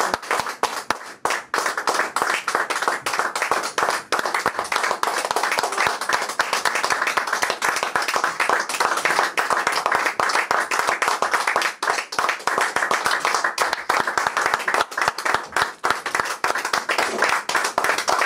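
A small audience applauding: dense, steady clapping that follows straight on from the end of the song and holds at an even level throughout.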